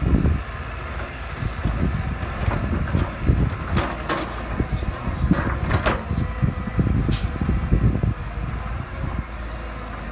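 Heavy machinery working: an uneven, fluctuating engine rumble with a few sharp metallic clanks.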